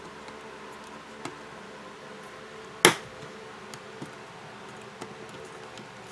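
One sharp click about three seconds in, with a few lighter ticks, over a steady buzzing hum: small tools and phone parts being handled while the phone's bottom bracket is put back on.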